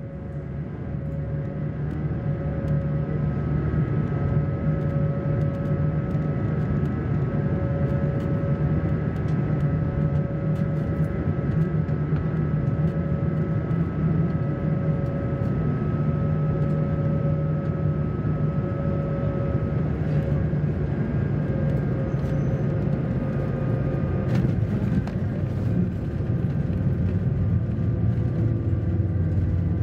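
Inside the cabin of an Airbus A220-300, its Pratt & Whitney PW1500G geared turbofans and the rushing air make a steady hum with a few held tones through the final approach. About 24 seconds in, a few short knocks come as the aircraft touches down, and a rising tone starts just at the end as it rolls out with spoilers up.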